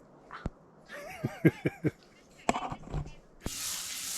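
A few light clicks and a brief wavering voice sound, then about three and a half seconds in a steady sizzle of food frying on a hot skillet starts suddenly.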